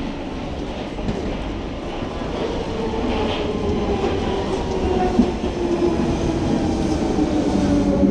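London Underground 1992 Stock tube train running into the platform and braking, a rumble with a falling electric whine that grows louder toward the end.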